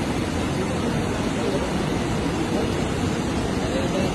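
Fast-flowing floodwater rushing, a steady unbroken noise.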